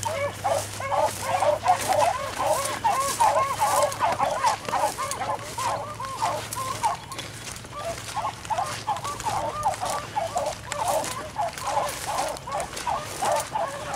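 A pack of beagles baying together, many overlapping rising-and-falling bawls without a break, the sound of hounds running a rabbit on its scent.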